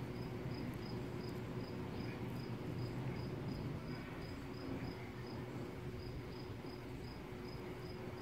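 Insect chirping steadily in short, evenly spaced high chirps, about three a second, over a low steady hum.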